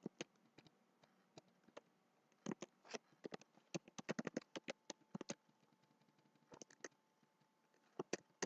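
Computer keyboard typing: quick keystroke clicks in irregular bursts with short pauses between them.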